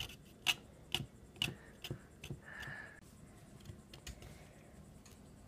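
A fingertip tapping on the frost-covered side of a plastic container: about five light clicks half a second apart, then a short faint high tone.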